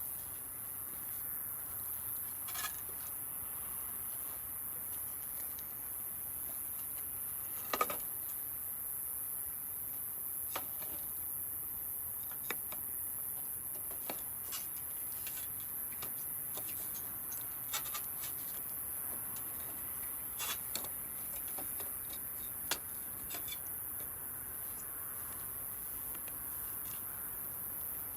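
Wood fire burning and crackling, with a steady low hiss and irregular sharp pops from the burning wood. The loudest pop comes about eight seconds in.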